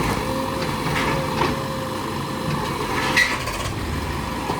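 JCB 3DX backhoe loader's diesel engine running steadily, with a few short knocks over it, the loudest a little after three seconds in.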